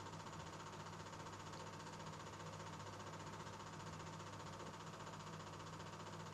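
Faint steady hum and hiss with no distinct events: the background noise of an old film transfer.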